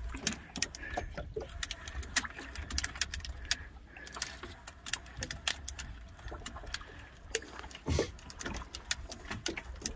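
Homemade hand-cranked deep-water fishing reel clicking irregularly, several times a second, as line is wound in from deep water, over a steady low rumble.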